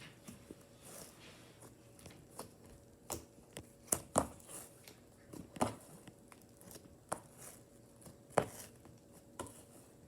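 Homemade slime being squeezed and stretched by hand: faint, irregular sticky clicks and small pops.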